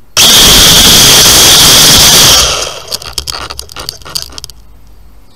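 Handling noise on the U818A quadcopter's onboard camera microphone: a sudden, loud, clipped rush lasting about two seconds as the drone is grabbed, then fading into a string of scrapes and clicks as it is lifted and carried.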